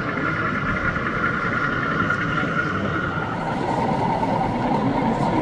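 Steady background din of a busy exhibition hall, with a steady hum that drops to a lower pitch about three seconds in.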